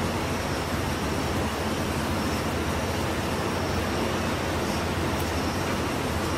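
Steady city street noise: a continuous traffic rumble and hiss with a low hum underneath.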